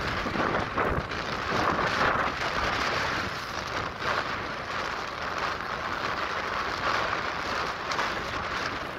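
Strong wind blowing over a phone microphone: a steady rushing noise with irregular low buffeting rumbles.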